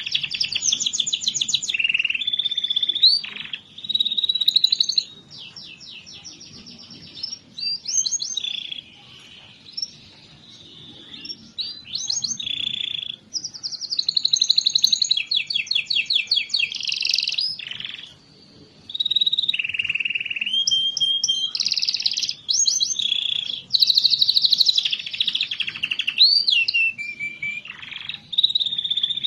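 Domestic canary singing a long, varied song of rapid trills and rolling phrases, broken by a few short, quieter pauses.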